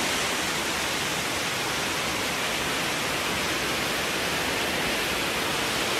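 Floodwater pouring into an underground car park: a steady, even rush of water.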